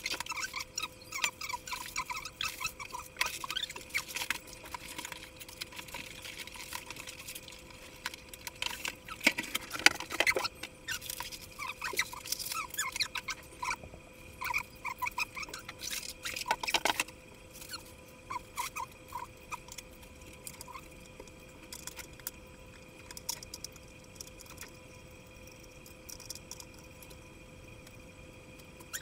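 Styrofoam packing blocks squeaking and creaking as they are worked out of a monitor box, mixed with rustling of cardboard and packaging. Busy at first with two louder scrapes about ten and seventeen seconds in, then only scattered squeaks. A faint steady hum runs underneath.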